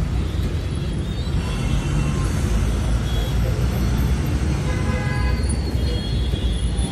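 City bus engine and road noise heard from inside the moving bus: a steady low rumble, with faint voices and street sounds over it.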